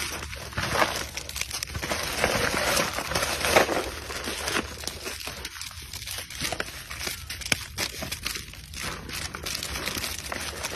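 Plastic snack wrappers crinkling and crackling irregularly as macaques grab packets out of a cardboard box of peanuts.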